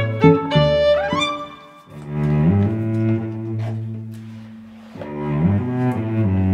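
Background instrumental music: a run of short notes, a rising slide about a second in, then long held low notes.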